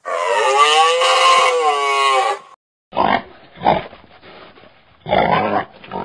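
An animal's long drawn-out call, its pitch rising then falling, lasting about two and a half seconds. After a short gap come several short, rough grunts of wild boar.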